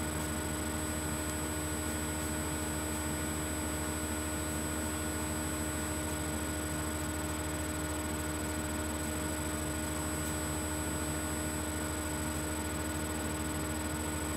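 Steady electrical mains hum and buzz with a thin high whine over faint hiss, unchanging throughout.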